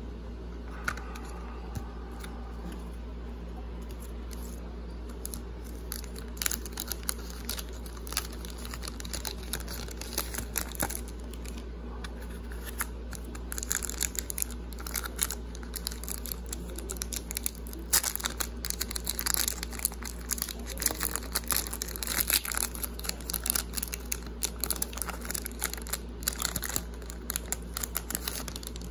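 Foil wrapper of a trading card pack crinkling and tearing as the pack is opened and the cards handled, the crackling getting much busier about halfway through. A steady low hum runs underneath.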